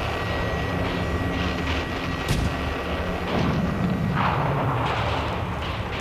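Heavy artillery fire and shell explosions over a continuous rumble, with a sharp crack a little past two seconds in and a heavier blast about three and a half seconds in.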